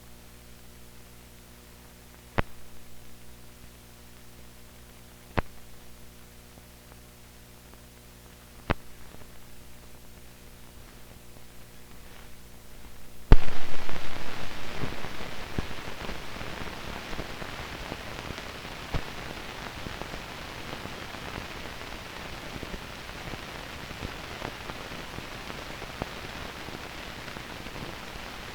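Soundtrack noise from old film with no program sound. At first a faint steady hum with a sharp click every three seconds or so; about halfway through a sudden loud pop gives way to a dense crackling hiss that fades a little and then holds steady.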